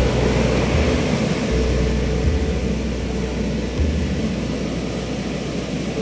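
Rough sea surf breaking and washing up the sand, with gusts of wind buffeting the microphone as an uneven deep rumble.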